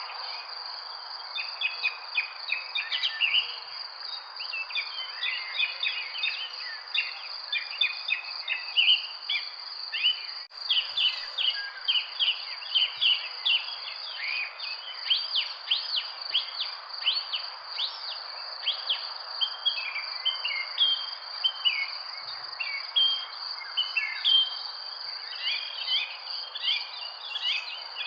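Many birds chirping and singing in quick overlapping calls, over a constant high-pitched insect trill and a steady background hiss. The sound cuts out for an instant about ten seconds in.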